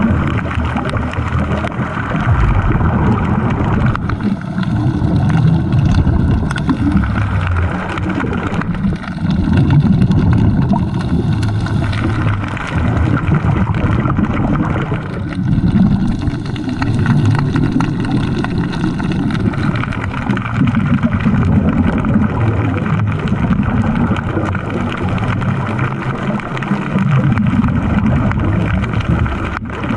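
Underwater recording: a loud, muffled low rumble of water noise, with a faint high whine that comes and goes three times.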